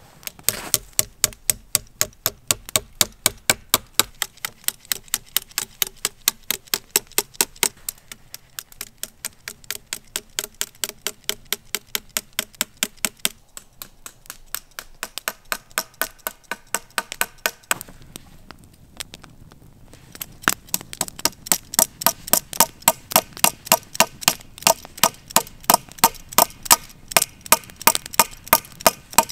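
Evenly spaced sharp knocks, about three a second, with two short breaks around the middle.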